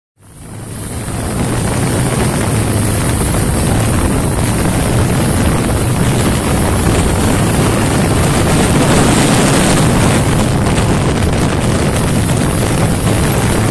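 Honda TMX 125 single-cylinder motorcycle engine running steadily at high revs at speed, under loud wind rush on the microphone. The sound fades in over about the first second.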